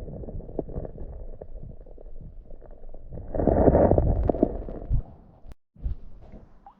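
Muffled sloshing and rumbling of pond water heard by a camera held underwater, with scattered knocks and a louder surge about three and a half seconds in. It drops off sharply about five and a half seconds in.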